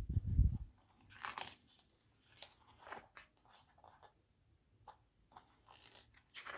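Pages of a photobook being turned and handled, with short paper rustles and crinkles every second or so. A low thump opens it and is the loudest sound.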